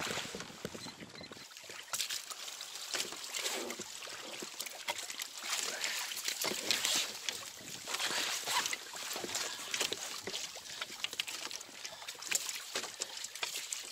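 Water splashing and sloshing against a kayak's hull, with many short irregular splashes.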